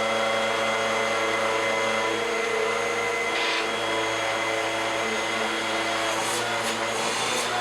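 Bissell upright bagless vacuum cleaner running steadily with a constant motor hum, its clogged hoses and filters just cleaned out. A few short hissing bursts come near the end.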